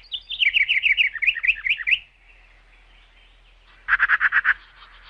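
Birds chirping in quick, rapid trills: a run of fast chirps lasting about two seconds, a short pause, then another brief burst of chirps near the end.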